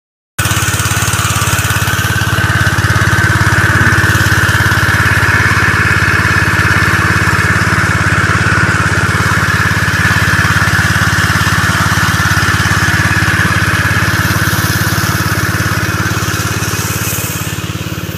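Honda WB20XD petrol water pump's small four-stroke engine running steadily, with water spraying from the pump's outlet assembly. It grows a little fainter near the end.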